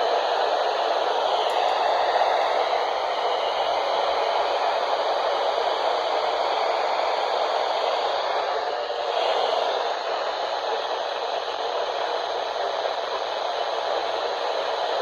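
Weather radio receiver putting out steady static hiss, with faint wavering whistle tones in the noise.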